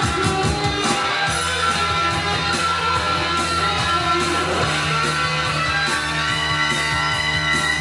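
Guitar-led music played back from a vinyl record on a Sanyo TP20 belt-drive turntable: quick rhythmic strumming about the first second, then held notes over a steady bass line.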